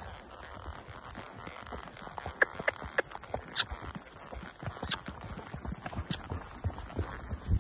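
Horse's hooves clopping at a walk on a dirt trail under a rider: irregular clops, sharper and more frequent from a couple of seconds in.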